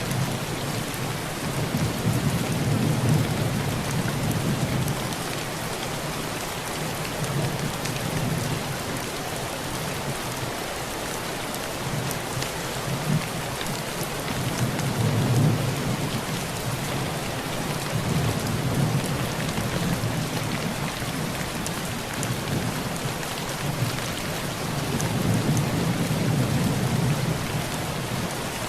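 Heavy rain drumming steadily on a tin roof, with low rolls of thunder swelling and fading several times.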